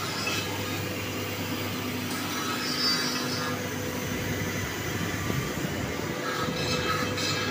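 Steady machine hum: a constant low drone with a few faint higher tones over a background hiss.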